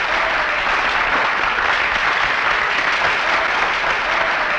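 A crowd of spectators applauding, a steady dense clapping.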